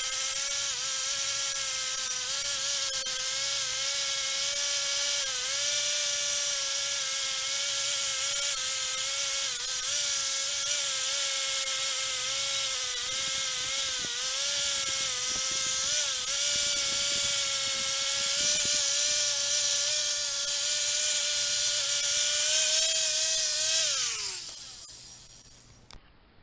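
Handheld electric power tool running steadily at high speed while cleaning crud off a cylinder head, its pitch dipping slightly as it bears on the work. About 24 seconds in it is switched off and winds down with a falling pitch to a stop.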